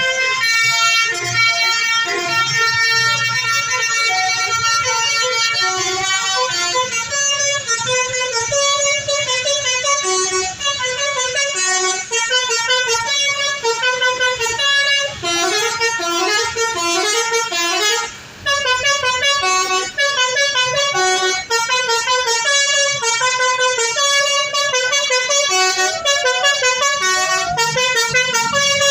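A bus's Basuri telolet horn, a set of electric trumpet horns, playing a long, rapid melody of loud multi-note chords that step up and down in pitch, with a brief break about eighteen seconds in.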